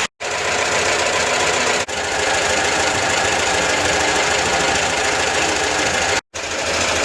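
Citroën Ami 6's 602 cc air-cooled flat-twin engine idling steadily while warming up. The sound cuts out abruptly for a moment just after the start and again about six seconds in.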